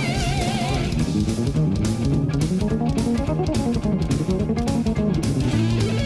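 Background music led by guitar: a wavering, vibrato-laden note at the start, then a moving melody over a steady low line.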